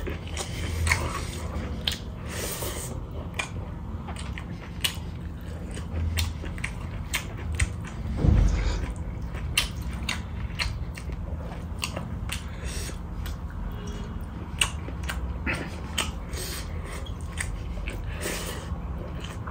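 Close-up mukbang eating sounds: chewing with frequent short wet clicks and lip smacks as rice and pork curry are eaten by hand. A low steady hum runs underneath.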